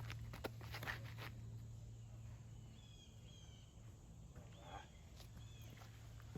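Faint outdoor ambience with a few short, high bird chirps near the middle, over a steady low hum. A few light clicks or knocks come in the first second or so.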